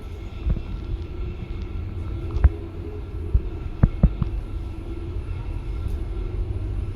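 ThyssenKrupp passenger lift car in motion between floors: a steady low rumble and hum, with a few sharp clicks and knocks along the way.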